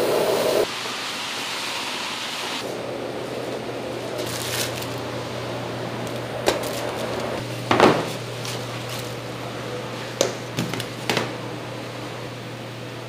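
Kitchen background noise: a steady low hum with a hiss over the first two seconds or so, broken by a few sharp knocks and clatters of handling, the loudest nearly eight seconds in.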